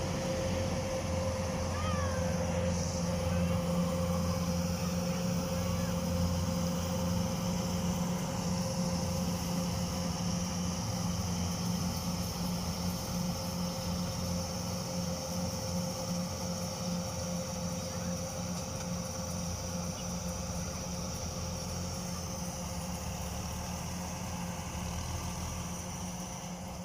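Kubota DC105X combine harvester's diesel engine running steadily with an even hum, easing slightly quieter near the end.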